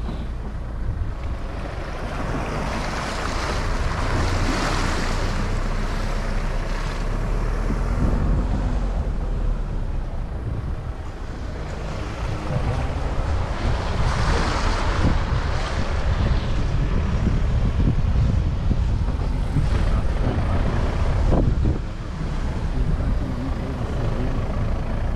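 Wind buffeting the microphone, a steady low rumble, under a broad outdoor wash of noise that swells twice, a few seconds in and again about midway.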